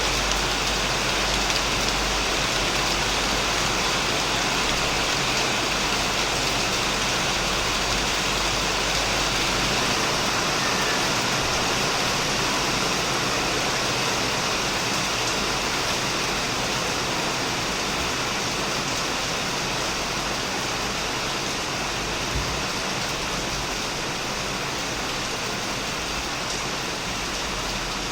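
Heavy rain falling steadily on a shed roof and plants: a dense, even hiss with no let-up.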